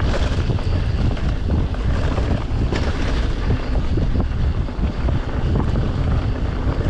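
Wind buffeting the microphone as a mountain bike runs downhill over a rough trail, with a steady low rumble and scattered short knocks and rattles from the tyres and bike.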